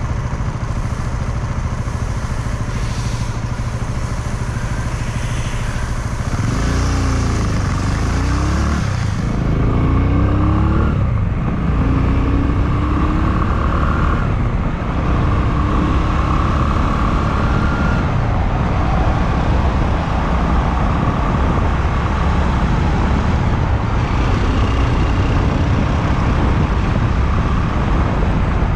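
Honda Clubman single-cylinder motorcycle engine on a ride. It runs low and steady at first. About six seconds in it revs up through a series of rising pitches as it accelerates and shifts gear, then settles into a steady cruise.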